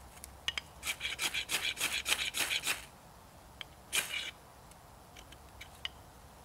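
A large ferrocerium fire steel scraped hard with a striker: a fast run of about eight rasping strokes, then one more about four seconds in, striking sparks onto fine wood curls to light a fire.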